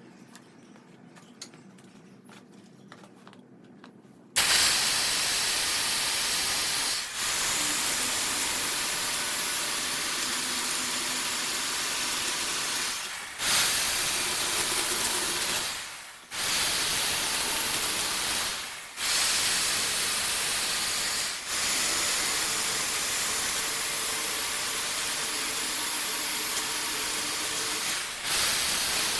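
Compressed air hissing loudly and steadily from a hand-held air nozzle or spray gun, starting suddenly a few seconds in and cut off for a moment about six times as the trigger is let go.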